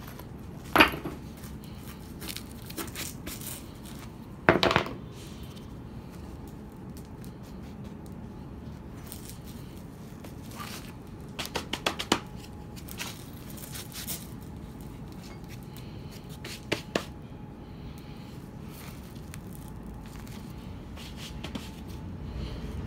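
Concrete paver blocks being handled and fitted into place: scattered sharp clacks and scrapes of block against block. The loudest knocks come in the first few seconds, with a cluster of lighter knocks about halfway through.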